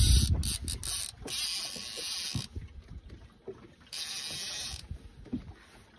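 Fishing reel's drag buzzing as a hooked dentex pulls line off. The drag runs for about two and a half seconds, stops, and runs again briefly a little after the middle, with a dull bump at the very start.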